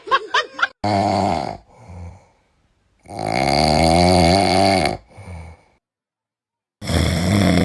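A man snoring loudly in his sleep: three long snores about three seconds apart, each followed by a short, softer breath. A brief high squeaky sound comes at the very start.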